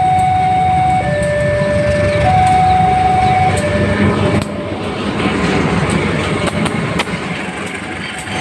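A locomotive-hauled passenger train passes through a level crossing with a heavy low rumble, while the crossing's warning alarm sounds two alternating tones, switching about every second and a quarter. About halfway the alarm fades under the rattle of the carriages and sharp clicks of their wheels over the rail joints.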